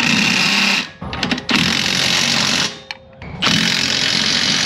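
A power tool run in three bursts of about a second each, with short pauses between, giving a loud rattling, hammering noise.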